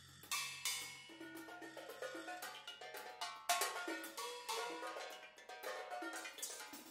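Percussion ensemble playing a fast passage of struck notes with short ringing pitches over drums and cymbals, with one sharp loud hit about three and a half seconds in. A low drum tone fades out in the first second.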